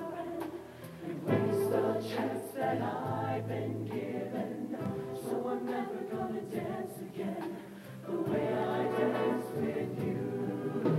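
High school mixed show choir singing together in harmony, with brief dips in loudness about a second in and again around eight seconds.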